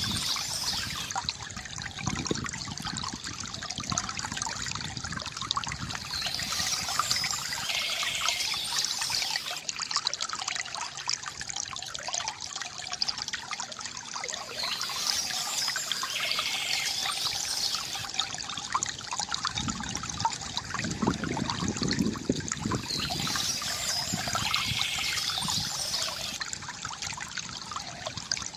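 Water trickling and gurgling from a bamboo fountain, with birds chirping in a short phrase that comes back about every eight seconds.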